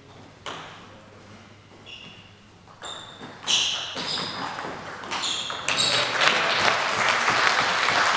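Table tennis rally: the celluloid ball clicks and pings off the bats and table several times, each hit a sharp click with a short ringing tone. About six seconds in, a dense, loud patter of clapping takes over.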